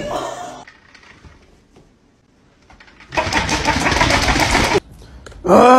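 A small toy motor whirring steadily for about a second and a half. Near the end comes a loud vocal cry whose pitch rises and falls.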